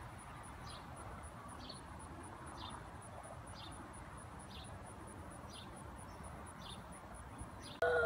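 Outdoor summer ambience: short high chirps repeating about once a second over a faint, fast insect pulsing. Near the very end a sudden, much louder call with a falling pitch breaks in.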